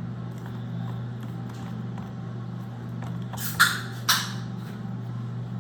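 Steady low hum, broken by two short, sharp noises about half a second apart a little past the middle.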